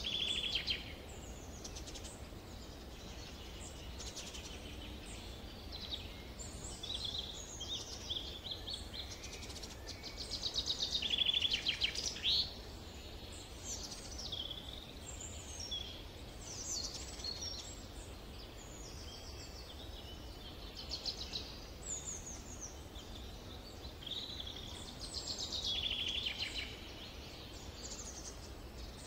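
Several songbirds singing and calling in summer woodland, with overlapping high chirps and rapid trills. A louder fast trill comes about eleven seconds in and again near the end, over a faint low rumble.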